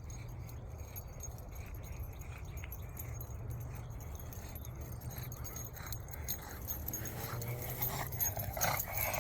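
English bulldog panting, tired from running after a Frisbee; faint at first and louder near the end.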